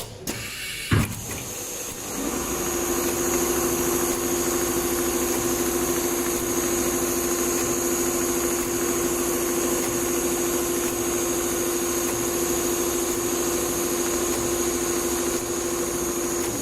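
Multihead industrial sewing machine stitching leather: a knock about a second in, then the machine starts up about two seconds in and runs steadily with a hum and a high whine, stopping abruptly at the end.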